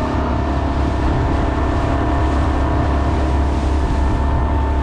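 Outboard motor of a small inflatable boat running at a steady speed, its hum holding one pitch, under a loud rush of wind and choppy water.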